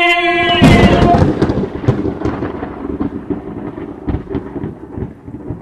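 A long held cry, then a sudden loud crack about two-thirds of a second in, followed by a crackling rumble like thunder that slowly dies away.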